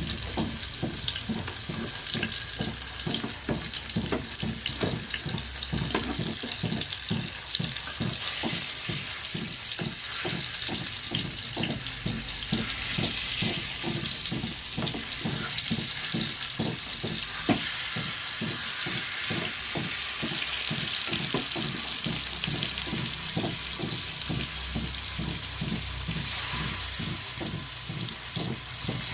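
Chicken leg pieces frying in hot oil, a steady sizzle full of rapid crackling pops.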